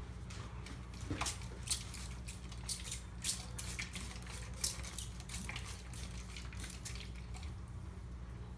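Handheld trigger spray bottle misting water onto a bare glass pane: a quick run of short hissing squirts, a couple to a few each second, that stops a second or so before the end.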